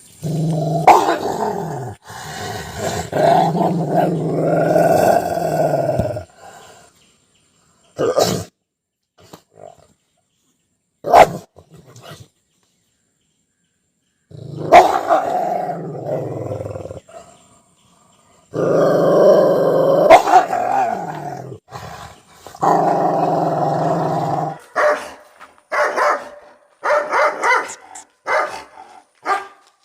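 Dogs growling in several long stretches, with single barks in between, then a run of quick barks near the end.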